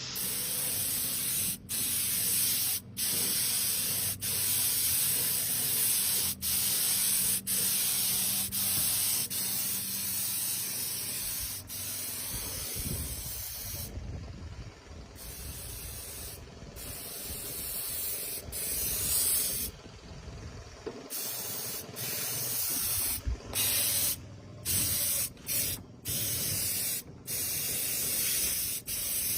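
Paint spray gun hissing in long passes broken by short pauses where the trigger is released; the pauses come more often in the second half.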